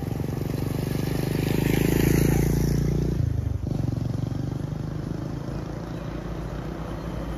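Motorcycle engine approaching and passing close by, loudest about two seconds in, its pitch dropping as it goes past; an engine keeps running more quietly after that.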